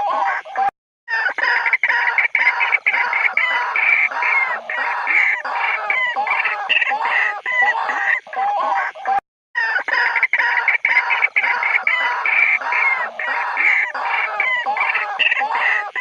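White-breasted waterhens giving their territorial calls: a loud, dense, unbroken stream of repeated calls. It cuts to silence briefly twice, just under a second in and about nine seconds in.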